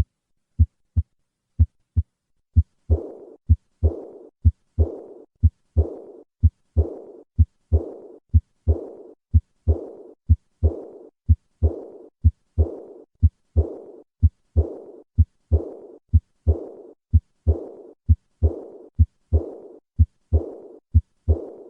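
Auscultated heart sounds of aortic regurgitation. A few plain heartbeats come first. From about three seconds in, each beat is followed by a high-pitched diastolic decrescendo murmur that fades away after the second heart sound.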